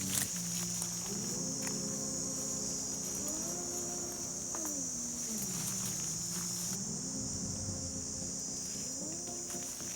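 Steady high-pitched insect chorus, crickets or cicadas, over low sustained tones that hold and then slowly slide up and down in pitch.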